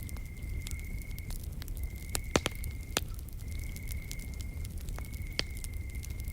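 Wood fire crackling, with several sharper pops, the loudest about two and a half and three seconds in, over a low steady rumble. Behind it an insect trills at one steady high pitch in repeated stretches of about a second, with short breaks between them.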